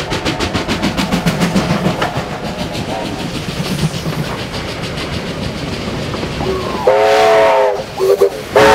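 Victorian Railways R class steam locomotive running with a rapid, even beat. Then its steam whistle sounds a long blast about seven seconds in, a short toot, and another blast near the end.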